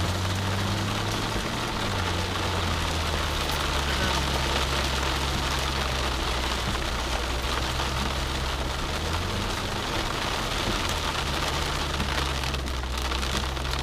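Ford Mustang with a Flowmaster exhaust running at low speed, heard from inside the cabin, its engine note dropping about two seconds in and rising again about nine seconds in. Rain falls steadily on the car throughout.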